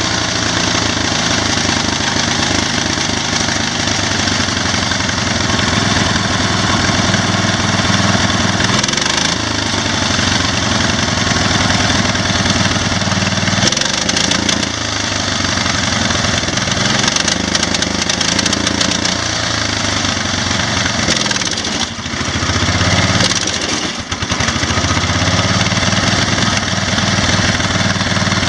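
Massey Ferguson 1650 garden tractor's 16 hp engine running after being got going. Its speed rises and falls several times and sags briefly twice near the end. It is on a carburetor from a 14 hp Massey that is not dialed in for this engine, so it runs alright but not perfect.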